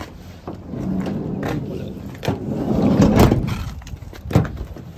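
A van's door rolling along and shutting with a bang about three seconds in, with clicks and knocks of keys at the door lock around it.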